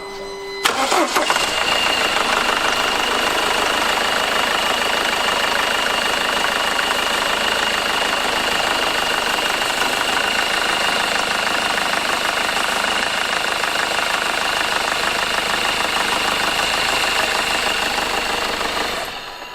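Mercedes W211 engine starting about a second in and idling steadily, with a thin steady high tone over the running noise, then switched off near the end. It is running on a newly replaced alternator overrunning pulley, and the belt drive runs without the squeal of a seized freewheel.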